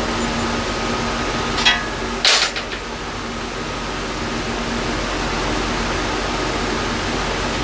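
Steady mechanical hum with a constant tone throughout, and two short sharp clinks, about a second and a half to two and a half seconds in, from tools and hardware during transmission reinstallation.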